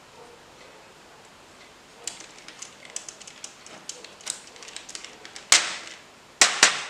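Small plastic keyboard parts clicking and rattling as they are handled, starting about two seconds in as a loose run of light taps, with a few louder, sharper clicks near the end.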